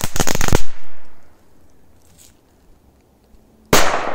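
Korsar-4 firecracker with effect crackling in a rapid string of sharp pops that stops about half a second in. After about three seconds of quiet it goes off with one loud bang near the end.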